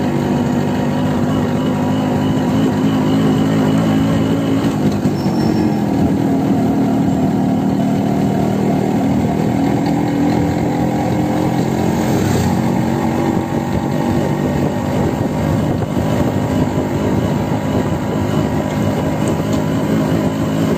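Yamaha RX 100's two-stroke single-cylinder engine running steadily as the motorcycle is ridden, running smoothly as the owner puts it. Its note shifts in pitch about five seconds in, with a short sharp noise about twelve seconds in.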